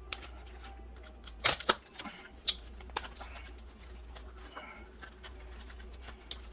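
A blade cutting and prying at a running shoe's foam midsole around its carbon plate: sporadic sharp clicks and cracks, with a cluster about a second and a half in, over a low steady hum.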